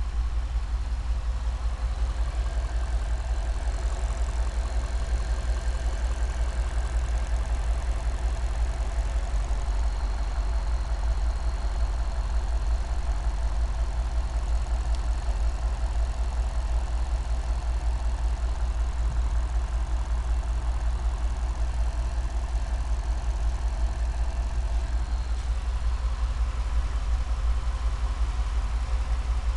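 Cadillac STS engine idling steadily with a misfire, which was traced to bad piston rings.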